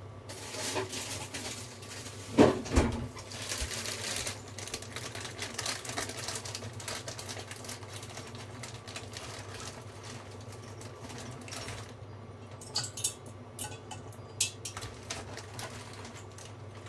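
Kitchen work: water running or pouring with a hard knock about two and a half seconds in, then a run of light clinks and clicks of dishes and utensils.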